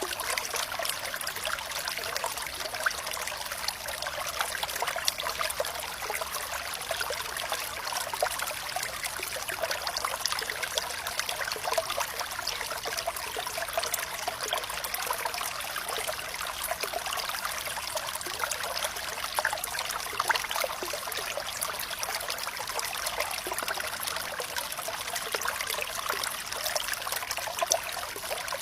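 Water running and trickling steadily, an even splashing burble with many small bright drips and splashes.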